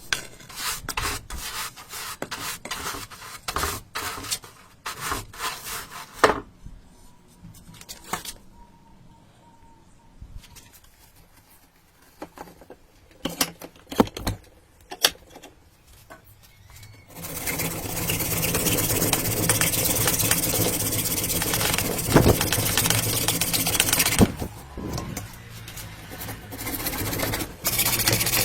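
Hard objects being handled and worked by hand, with scattered clicks and knocks. About two-thirds of the way in, a steady rasping, sawing-like noise runs for several seconds, followed by more scraping.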